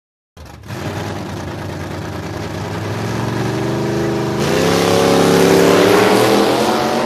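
Car engine revving under acceleration. It cuts in abruptly, runs steadily, then steps up in pitch about four seconds in and keeps climbing.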